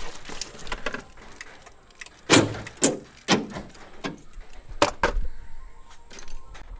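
Sharp clicks and knocks from hands working inside a stripped car door around the central-lock wiring, with four louder knocks spread through the middle.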